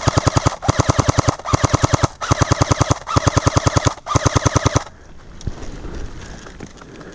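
Airsoft rifle firing on full auto in six quick bursts of rapid shots, each under a second long with brief pauses between them. The firing stops about five seconds in.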